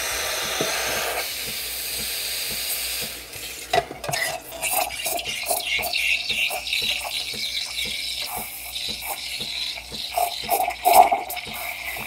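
Breville espresso machine's steam wand hissing steadily for about three seconds. Then the tip goes into a pitcher of milk and the sound turns to an irregular crackling, sputtering hiss as air is drawn in to froth the milk. A fast ticking, about four a second, runs underneath.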